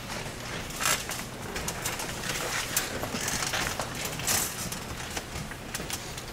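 Rustling, shuffling and chair noise of a group of people sitting down, with a few louder bumps about a second in and again about four seconds in.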